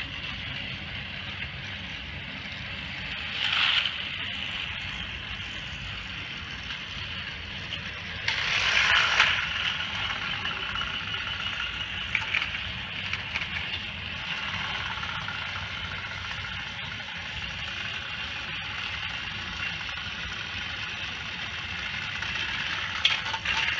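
Battery-powered Thomas & Friends toy train running on plastic track: the small electric motor and gears whirring steadily, with the wheels rattling over the track joints. It gets louder for a moment twice, about 3 and 8 seconds in, and a few sharp plastic clicks come near the end.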